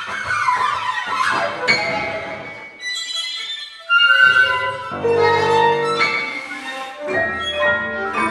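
Contemporary chamber ensemble of flute, clarinet, violin, double bass, piano and percussion playing new music. Sliding pitches cross each other at the start, the texture thins briefly, then a loud entry about four seconds in brings held notes and a dense chord, followed by shorter pitched notes.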